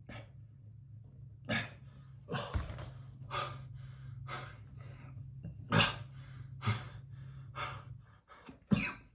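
A man breathing heavily, a series of short audible breaths about one a second over a steady low hum. He is ill with a cough and short of breath.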